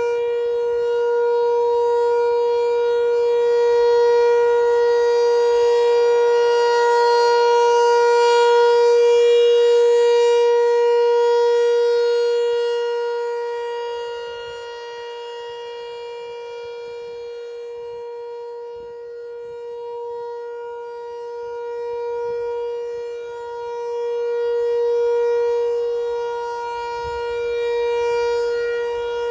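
ASC T-128 electromechanical outdoor warning siren sounding its steady alert signal: one held tone at an unchanging pitch. The tone swells and fades slowly as the rotating head turns, quieter for several seconds midway and swelling back near the end.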